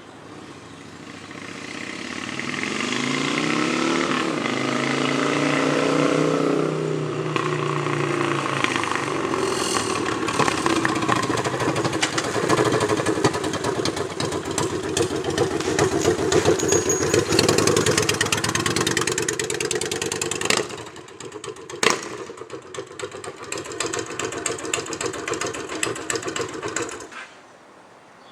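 2004 Honda Shadow Aero's 745 cc V-twin running through its stock Cobra pipes with the baffles removed and the ends cut. It grows louder as the bike comes closer, its pitch falling as it goes by, runs loud for a long stretch with a sharp click a little past the middle, then stops abruptly near the end.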